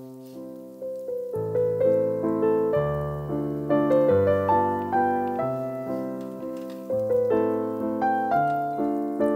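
Background piano music: a gentle melody over chords, notes struck every half second or so and each dying away.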